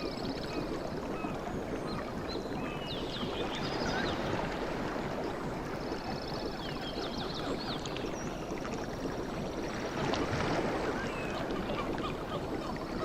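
Sea water washing and lapping steadily, with birds chirping over it. A high, evenly pulsed trill comes in about halfway through and again near the end.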